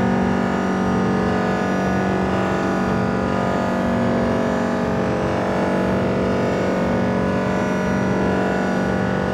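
Dreadbox Typhon analog monophonic synthesizer holding one low, gritty, buzzing drone note that stays steady and unbroken.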